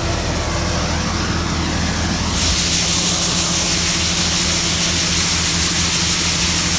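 Gleaner combine running while it unloads soybeans: a steady engine drone with a rushing hiss over it that grows louder about two and a half seconds in.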